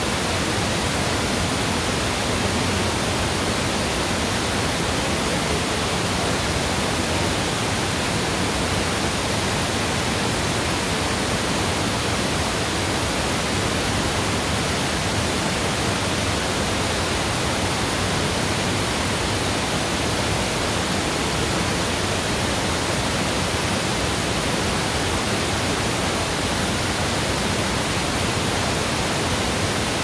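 Mountain waterfall pouring steadily: an even, unbroken rush of falling water that does not change in level.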